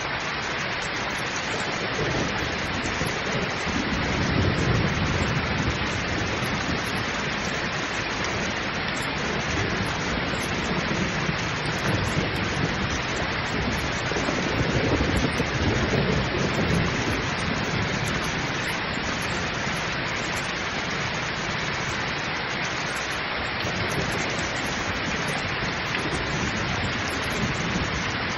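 Heavy rain pouring steadily, with two low rolls of thunder, the first a few seconds in and the second about halfway through.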